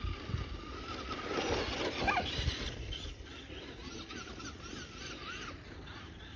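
Traxxas Rustler RC truck's electric motor whining, its pitch rising and falling with the throttle as it drives across grass. A dog gives a short, sharply rising yelp about two seconds in.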